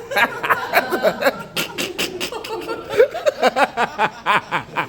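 Audience laughing, chuckling and snickering in response to a comedian's punchline.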